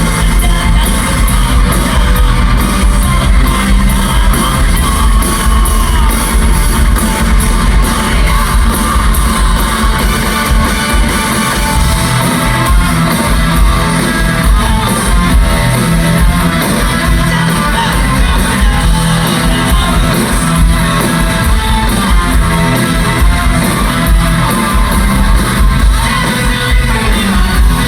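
Rock band playing live and loud, with electric guitars and fast, pounding drums in a dense, unbroken wall of sound.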